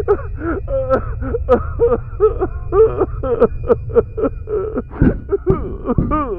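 An unintelligible voice vocalizing in quick, bending sounds over a steady low hum; about five seconds in the hum stops and heavy thuds begin.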